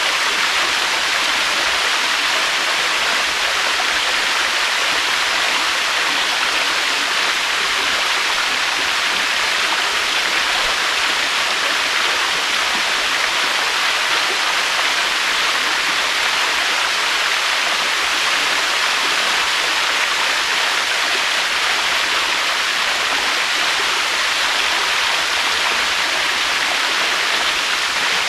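Waterfall: a steady, unbroken rush of falling water, even in level with no swells or breaks.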